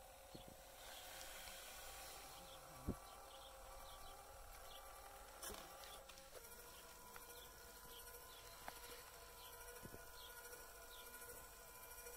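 Faint steady whine of a small geared electric motor turning the all-thread screw that tips an RC dump truck's bed; its pitch steps up about halfway through. A single sharp knock about three seconds in.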